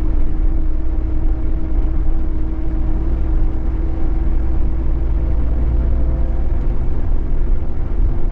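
Scania K420EB coach's rear-mounted diesel engine and road noise heard from inside the passenger cabin while driving: a heavy low rumble with a steady engine drone.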